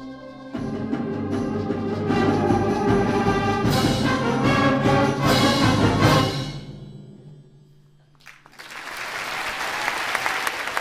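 Concert band playing the closing bars of a piece: held chords swell into a loud full-band ending with percussion strikes, and the final chord dies away about seven seconds in. Audience applause breaks out about a second later.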